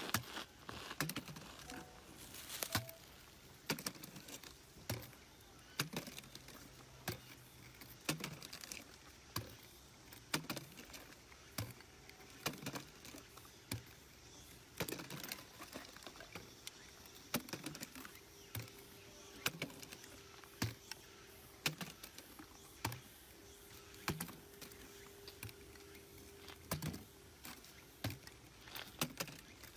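Light, sharp clicks and taps, irregular, about one or two a second: a small plastic drink bottle being tapped and set down on a stone slab.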